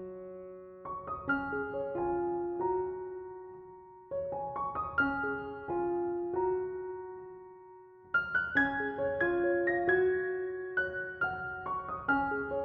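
Background piano music: gentle phrases of struck notes that ring and fade, pausing briefly about a third and two thirds of the way through.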